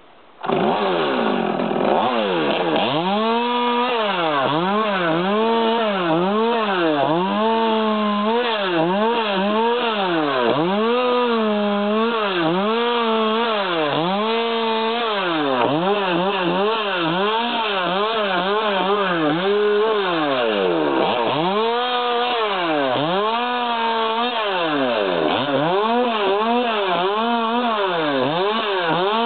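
Stihl 200T top-handle two-stroke chainsaw pruning pine branches. It comes in loud about half a second in, then revs up and drops back over and over, about once a second, as it cuts off branch after branch.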